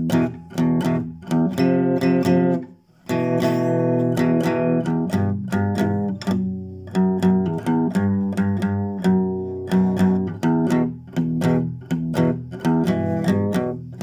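Classical guitar with a newly made compensated bridge saddle, strummed in a run of chords with a brief break a little under three seconds in. The saddle still needs fine tuning.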